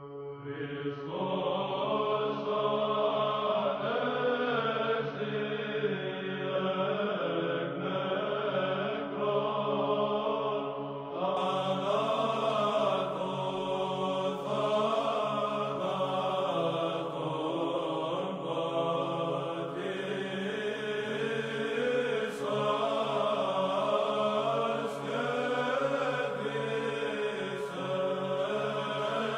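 Orthodox church chant: low voices sing a slow melody over a steadily held drone note.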